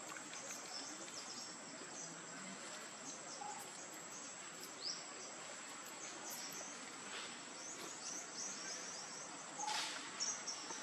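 Outdoor forest ambience: a steady high-pitched insect drone, with short chirping bird calls now and then, a few more of them near the end.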